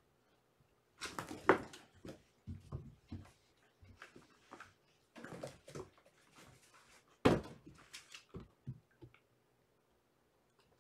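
Kittens playing: scuffling paws and rustling of a fabric cat bed, with two sharp thumps, about a second and a half in and again around seven seconds in.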